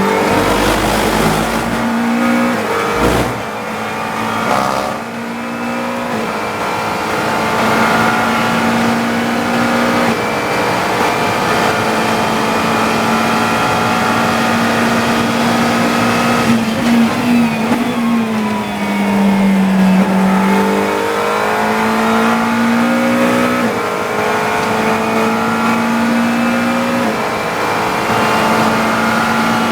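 GT3 race car engine heard from the cockpit, running hard at high revs with a near-steady note broken by short gaps. About 18 to 20 seconds in the pitch drops and then climbs back. There is a thump about three seconds in.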